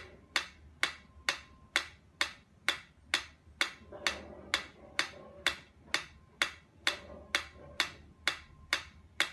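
Pyramid-shaped metronome ticking steadily, a little over two ticks a second.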